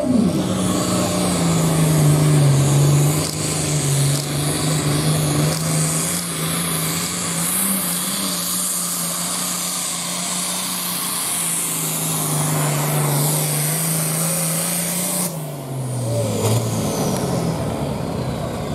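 Diesel farm pulling tractor at full throttle dragging the weight-transfer sled down the track: a steady, loud engine note with a strong hiss above it. About 15 seconds in, at the end of the pull, the hiss cuts off and the engine winds down.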